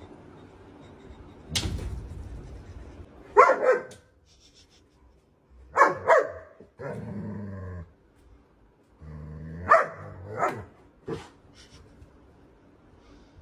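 German Shepherd barking in a few loud, separate barks, with long low growls between them, at its own reflection in a mirror.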